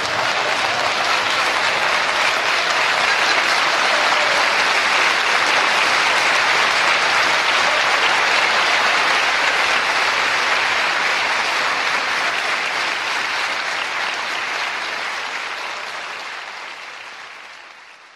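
Live audience applauding steadily; the applause dies away over the last few seconds.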